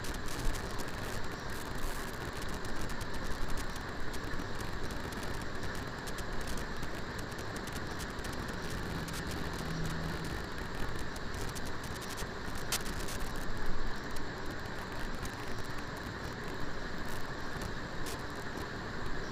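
Pieces of liver sizzling and crackling in hot oil in a nonstick kadai, with a steady hiss dotted with small pops, as a spatula stirs and turns them; one sharper click about two-thirds of the way through.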